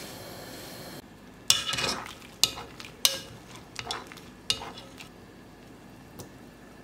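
Pot of water boiling for about a second, then a wooden spoon and a metal mesh strainer knocking and scraping against the pot about five times as cooked fusilli is scooped out.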